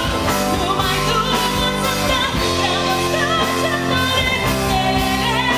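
A woman singing a pop song live with a band backing her: her voice wavers with vibrato over steady held chords.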